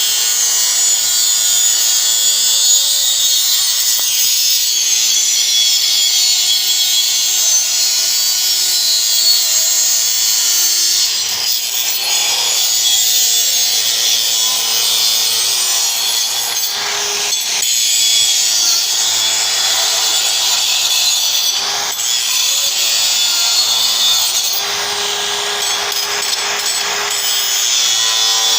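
DeWalt DCG414 FlexVolt cordless 125 mm angle grinder grinding down weld seams on steel: a loud, steady abrasive grinding hiss that eases off briefly a few times as the disc comes off the work.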